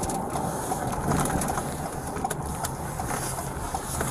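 Steady road and engine noise inside a moving patrol car's cabin, with a few light clicks.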